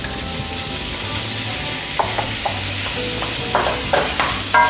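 Prawns sizzling in hot oil in a pan with garlic, ginger and spring onion, being stirred, with a few short knocks and scrapes of the utensil against the pan from about two seconds in.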